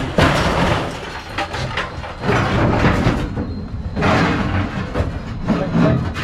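Scrap metal clattering and scraping in loud, irregular bursts as it is unloaded from a truck.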